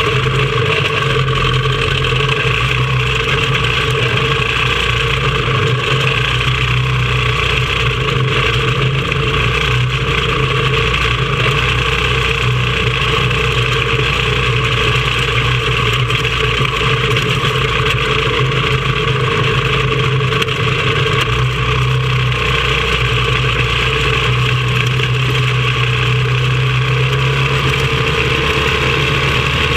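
Single-cylinder engine of a caged racing kart running hard at a nearly steady pitch, heard onboard close to its intake air filter, with the engines of other karts alongside.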